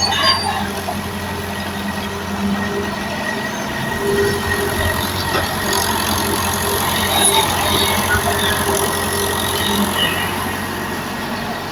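Mini excavator engine running steadily.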